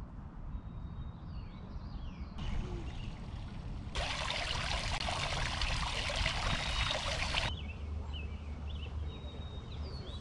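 Water from a tiered garden fountain splashing and trickling into its basin. It cuts in about four seconds in and cuts off sharply three and a half seconds later. Small birds chirp before and after it.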